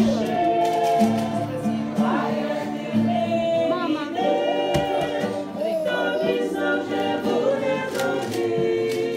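Background music: a Russian Christian hymn sung by a choir over steady accompaniment.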